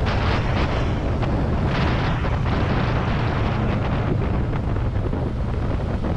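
Wind buffeting the microphone of a riding motorcycle, a steady heavy rumble, as the Kawasaki Ninja 650 rolls at around 50–65 km/h and slows a little, its engine running under the wind.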